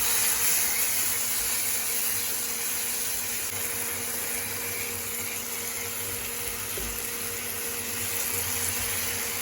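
Tomato and spice masala sizzling steadily in a frying pan, with a steady hum underneath.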